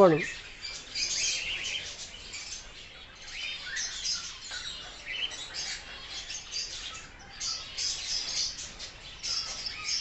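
Many caged birds in a breeding aviary chirping and chattering at once: a dense, overlapping chatter of short, high-pitched calls.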